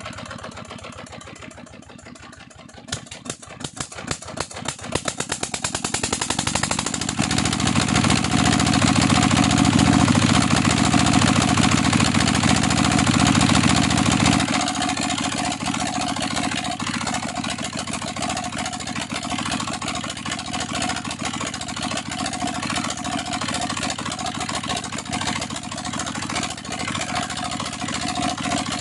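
Single-cylinder Petter-type diesel engine starting: it slows at first, then its separate firing strokes come faster until it catches and runs steadily. About halfway through, as the engine is adjusted by hand, the deep low sound eases off and it settles into a steady run.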